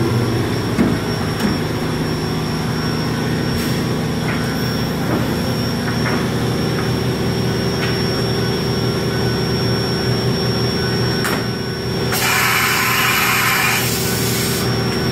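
Kuraki KV-700 CNC milling machine running, with a steady high whine over a low hum. A couple of short knocks come about a second in, and a louder hiss sounds for about two seconds near the end.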